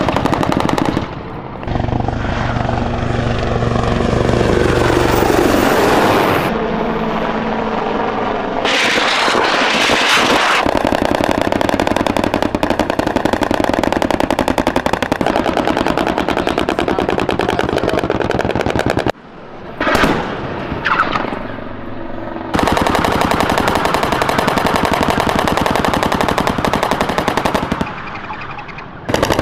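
Rapid fire from the AH-1Z Viper's 20 mm M197 three-barrel rotary cannon, in several long bursts broken by short pauses.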